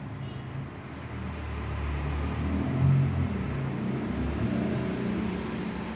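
The 200-watt machine of a nano bubble generator running with a low, uneven rumble, briefly louder about three seconds in.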